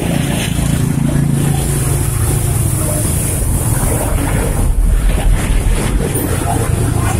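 Steady low mechanical rumble with a constant hiss, and a heavier low buffeting about five seconds in.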